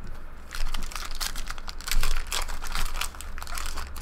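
Foil trading-card pack wrapper crinkling and being crumpled in the hands, a dense run of crackles starting about half a second in.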